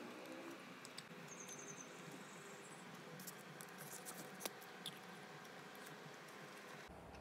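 Faint clicks and scrapes of a metal spoon against a styrofoam food tray as it cuts into a soft dessert, with a short high squeak about a second in.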